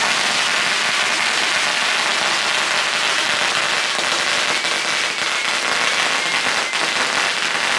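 Ground firework fountain spraying sparks: a loud, continuous hiss and crackle, with a faint thin whistle in the middle.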